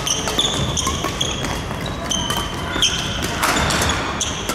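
Badminton doubles rally on a wooden sports-hall floor: shoes squeak again and again on the court as the players move, with sharp pops of rackets striking the shuttlecock and footfalls between them.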